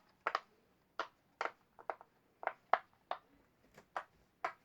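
Sharp, irregular clicking from a plastic fidget toy being worked in the hands, about three clicks a second.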